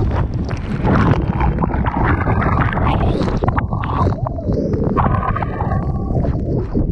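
Whitewater rushing and spray splashing over a tandem sit-on-top kayak as it rides a breaking wave, with heavy wind buffeting on the microphone.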